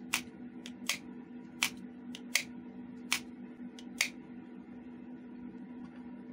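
Sharp metallic clicks from a homemade 4 mm Flobert derringer's action being worked by hand: about six loud clicks, roughly three-quarters of a second apart, some with a fainter click just before. They stop about four seconds in.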